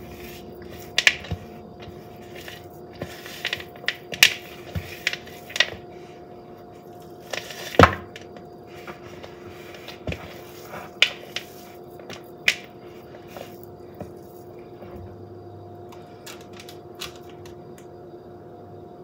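Spatula scraping and knocking against a plastic mixing bowl as cookie dough is scooped out: irregular clicks and knocks, the loudest about eight seconds in, growing sparse in the last third, over a steady faint hum.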